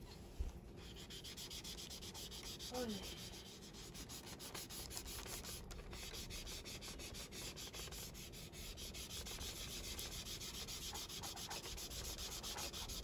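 A tissue held at the fingertips is rubbed quickly back and forth over paper, blending the graphite shading of a pencil drawing. It makes an even, scratchy rubbing of many short strokes a second, starting about a second in after a light tap.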